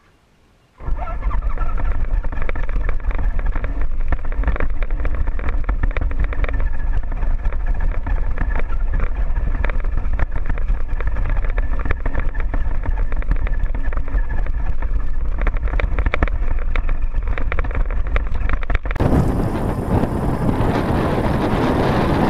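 Radio-controlled scale crawler truck driving over a rough dirt trail, heard from a camera mounted on it: a steady motor and gear whine over constant rattling and knocking of the chassis, starting about a second in. Near the end it gives way to wind buffeting the microphone.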